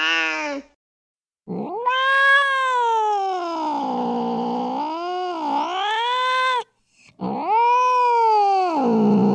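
Angry domestic cat yowling: after the tail of an earlier call, one long drawn-out yowl of about five seconds that rises and falls in pitch, then a shorter yowl that rises and drops away.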